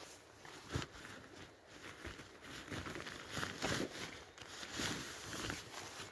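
Nylon fabric rustling and crinkling as a dry bag is pulled out of a rucksack, in uneven swells, with a single knock about a second in.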